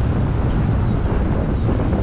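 Steady wind buffeting the microphone, heavy and low, mixed with the even rush of river rapids.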